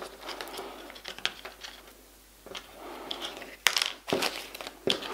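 Plastic packaging crinkling and rustling as small diamond-painting tools are handled and taken out of their bag, with a few sharp clicks in the second half.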